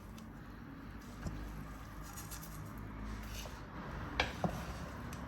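Soft scraping and shuffling of a spoon mixing cooked rice in a pot, with a few sharp clinks of metal on the pot, two close together about four seconds in.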